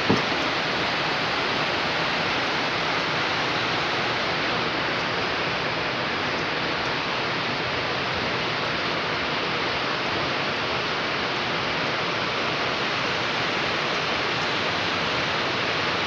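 Heavy rain falling, a steady dense hiss, with a single short knock right at the start.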